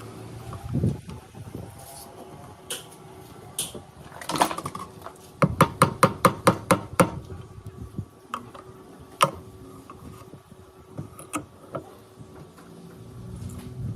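Sharp knocks and taps of a metal tool on wood, with a quick even run of about eight strikes a little past the middle and scattered single knocks before and after.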